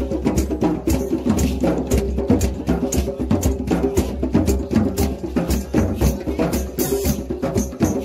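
Street drum circle playing a fast, steady rhythm on djembes and a drum kit with cymbals, with hands clapping along.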